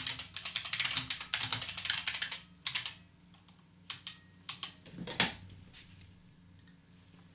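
Rapid clicking of typing on a computer keyboard, which stops about two and a half seconds in. A few separate clicks follow, the loudest a sharp knock about five seconds in.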